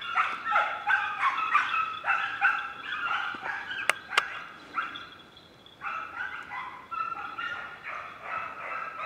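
Hounds giving tongue while pursuing wild boar: a run of repeated barks and bays, easing off briefly about halfway and then picking up again. Two sharp clicks a few tenths of a second apart come a little before halfway.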